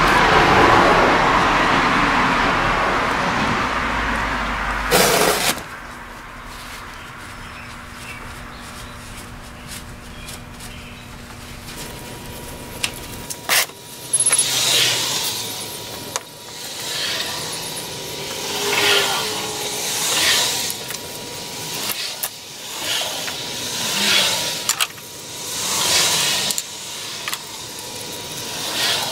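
A long hiss for the first five seconds, ending in a short knock. From about halfway, a shop towel rubs across the top of a lead-acid car battery in repeated swishing strokes, about one a second.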